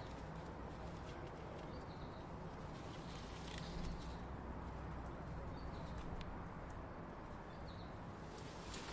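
Faint outdoor garden ambience: a steady low rumble with a few short, faint bird calls.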